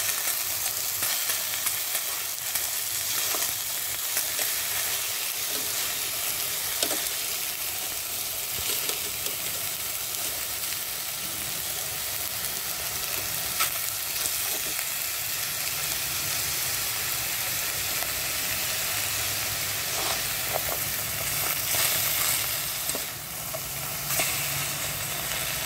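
Chicken pieces searing in a hot stainless steel pot: a steady sizzle with crackles, and now and then the click and scrape of metal tongs turning the pieces.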